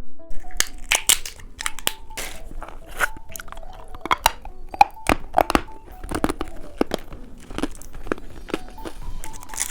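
Biting and crunching a hard-candy lollipop close to the microphone: a string of sharp, irregular cracks with chewing crunches in between.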